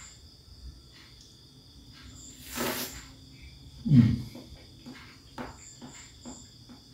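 Crickets chirping steadily in the background. Over them come a soft rustle about two and a half seconds in, a low thump about four seconds in, and small wet clicks as hands handle a cut mango.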